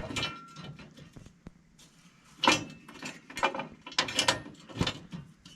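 Hand tools clicking and clanking against metal while working bolts on a hay baler's frame, in short irregular bursts.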